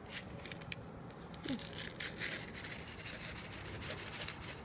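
Rustling and scraping with many small sharp clicks, busiest in the second half, with one short falling squeak about a second and a half in.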